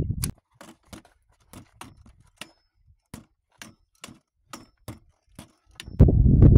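A short stick striking a freestanding reflex punching bag in a quick series of sharp smacks, about three a second. Low wind rumble on the microphone at the start comes back loudly near the end.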